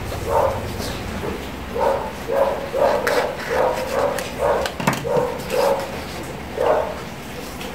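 A dog barking over and over, about two barks a second, stopping near the end, with a few sharp clicks among the barks.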